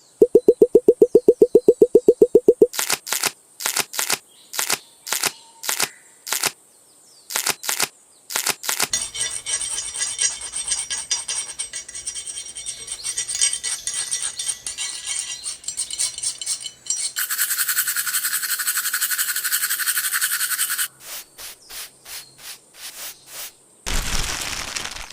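Small hand-crafting work noises: rapid even tapping at first, then separate sharp clicks, a long stretch of scraping, a steady high hiss lasting about four seconds, more clicks, and a short loud burst of noise near the end.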